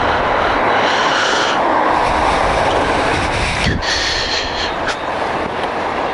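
Yamaha MT-09 three-cylinder motorcycle being ridden: a loud, steady rush of wind and engine noise, with a short click about three and a half seconds in.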